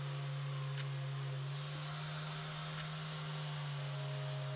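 Angle grinder fitted with a polishing pad running at a steady speed, buffing the steel of an axe head: a constant motor hum with a hiss of the pad on the metal.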